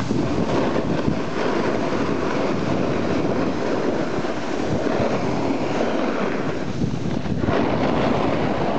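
Wind rushing over the microphone together with the steady scraping rumble of sliding downhill on groomed snow.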